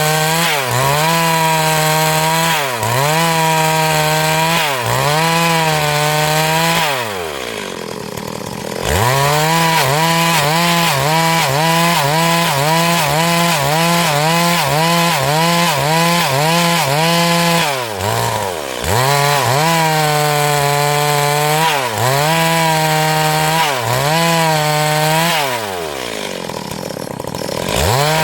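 Stihl MS382 two-stroke chainsaw at full throttle, ripping a hardwood log lengthwise into boards. Its pitch dips briefly every second or so as the chain loads up in the cut. Twice it drops back to idle for a couple of seconds before revving up again, about a quarter of the way in and near the end.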